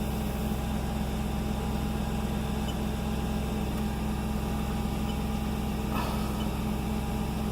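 2006 Audi S4's 4.2-litre V8 idling steadily. It has a new ignition coil on cylinder 2, which seems to have cured its misfire.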